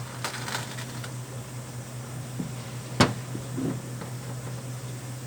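Light handling noises from working on parts: a few faint rustles, then one sharp knock about three seconds in and a softer one just after, over a steady low hum.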